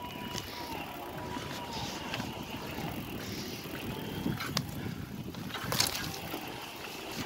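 Mountain bike ridden uphill on a trail: steady tyre and drivetrain noise with scattered clicks and rattles from the bike, and a sharper knock near six seconds in.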